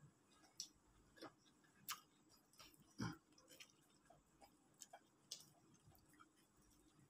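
Faint, scattered eating sounds: chewing and crisp fried chicken being pulled apart by hand, with small clicks and a soft knock about three seconds in.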